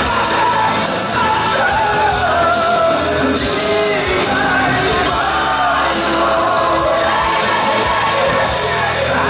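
A male lead singer singing a Russian pop-rock song live with a full band, the vocal held in long, wavering notes over steady accompaniment.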